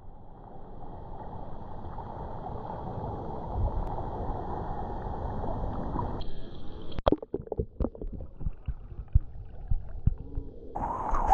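Surfer paddling prone on a surfboard, hands stroking through the water. A steady rush of water for about six seconds, then a string of sharp splashes and slaps as the strokes break the surface close to the water.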